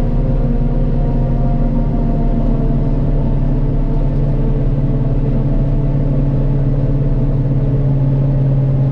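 Self-propelled forage harvester's diesel engine running loud and steady with a constant drone, heard from the operator's cab.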